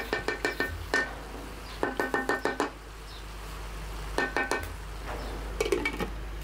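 Wooden spoon tapped rapidly against the rim of an enamelled metal pot in several short runs, each tap ringing briefly, knocking butter off the spoon. Near the end a glass lid is set on the pot with a few clinks.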